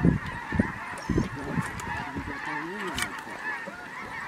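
A large flock of snow geese calling overhead, a dense, continuous chorus of many overlapping honks.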